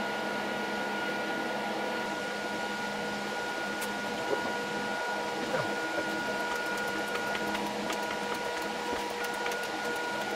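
Steady hum of a running motor with several held tones. Light clicks and taps of small metal parts being handled come through in the second half.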